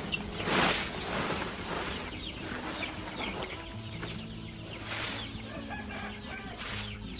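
Chickens clucking, with many short high-pitched calls throughout and two loud rustling bursts within the first second.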